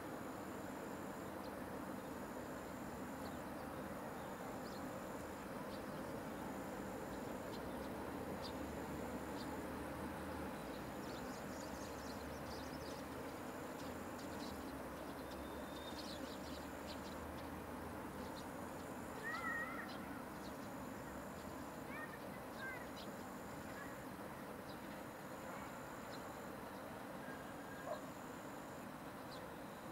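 An insect singing in short high, evenly spaced bursts, about one every two seconds, over a steady low background rumble, with a couple of brief bird chirps partway through.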